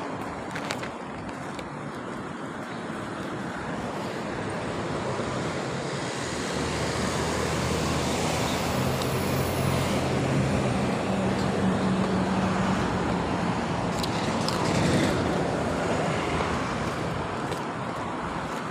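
Road traffic noise with the steady hiss of passing vehicles. A heavy vehicle's low engine hum comes in about six seconds in and fades out after about thirteen seconds.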